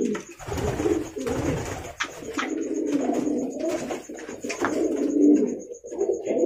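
Domestic pigeons cooing, several low coos running on one after another. A burst of low rumbling noise comes from about half a second to two seconds in, and a few sharp clicks come around two and four and a half seconds.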